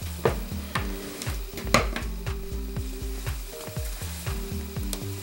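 Satin fabric rustling and crinkling as it is handled and folded, with a few sharp clicks. Soft background music with held notes plays underneath.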